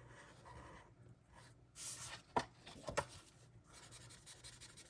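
Faint rustling and scraping of paper banknotes being handled and slid into place, with two light taps about two and a half and three seconds in.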